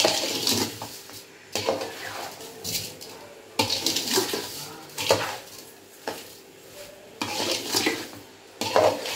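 Flat metal spatula scraping against a large metal kadai while stirring grated carrot and sugar, in clusters of quick scraping strokes with short pauses between. This is the sugar being mixed into carrots already fried in ghee, for carrot halwa.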